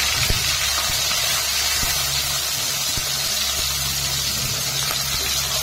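Snail meat sizzling steadily in hot oil in an aluminium karahi, with a few light spatula strokes against the pan and a steady low hum underneath.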